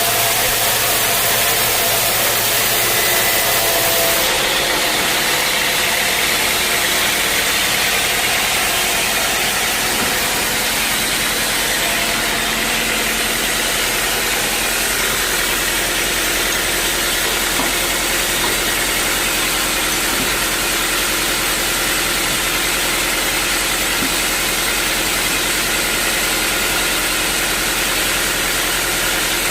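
Sawmill machinery running steadily and loudly, with a shift in the high-pitched part of the noise about four seconds in.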